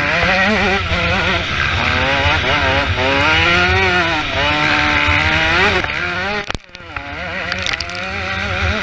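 Motocross motorcycle engines revving up and down under racing throttle. The sound drops out suddenly and briefly about six and a half seconds in, then picks up again.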